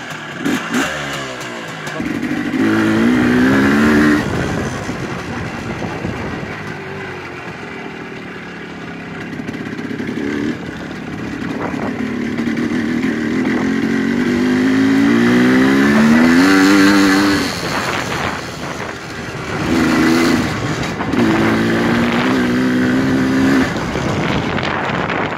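Voskhod 3M-01 motorcycle running under way, its engine note climbing in several rising runs and dropping back sharply between them as it is ridden through the gears.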